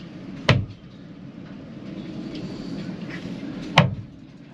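Two sharp knocks about three seconds apart, hard thumps against the boat's hull as a thru-hull fitting is pushed and worked into its hole, over a steady low hum.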